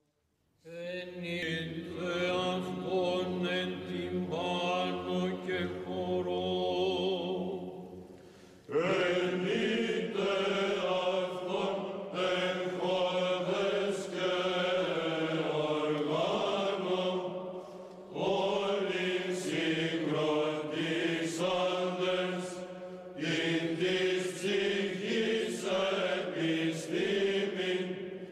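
Byzantine chant: a sung melody over a steady held drone (ison), in long phrases that break off briefly about eight, eighteen and twenty-three seconds in.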